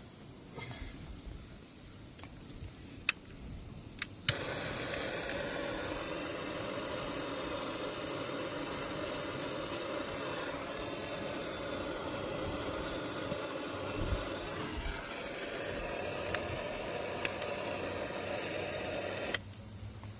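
Heat gun switched on with a click about four seconds in, running steadily for about fifteen seconds and cut off sharply near the end, heating adhesive-lined heat-shrink connectors on a wiring repair. A few sharp clicks come before it starts.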